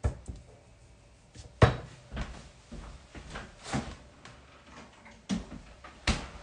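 A series of irregular knocks and clunks of things being handled in a kitchen, about seven in all, the loudest about one and a half seconds in.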